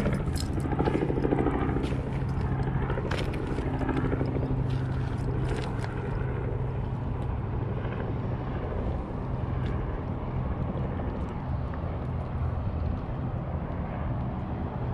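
Steady low drone of engines, with a few sharp clicks and knocks in the first six seconds.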